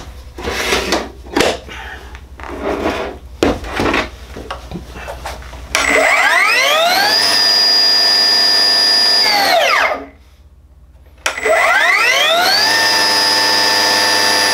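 Milwaukee M18 Fuel 9-inch cut-off saw with its blade mounted: handling clicks and knocks, then its brushless motor spins the blade up with a rising whine and runs free, with no cut. It winds down to a stop within about half a second under its brake, then is triggered again about a second later and runs steadily.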